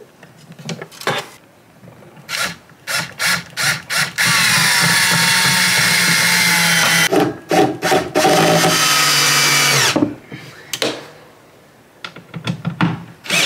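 Makita cordless drill-driver driving screws into plywood: several short trigger bursts, then two longer runs of a few seconds each with the motor's whine sinking in pitch, and more short bursts near the end.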